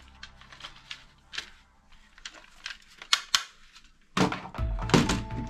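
Scattered sharp plastic clicks and clacks from toy guns being handled and set down. About four seconds in, louder background music with a beat comes in.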